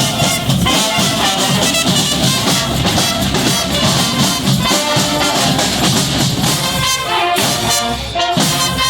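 Brass band playing live: horns over a steady drum beat with bass drum.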